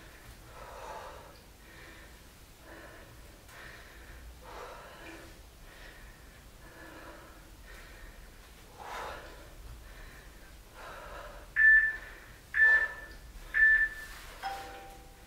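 Heavy breathing, one breath about every second, from a man exercising. Near the end an interval timer sounds its countdown: three loud short high beeps a second apart, then one lower beep, marking the end of the work interval.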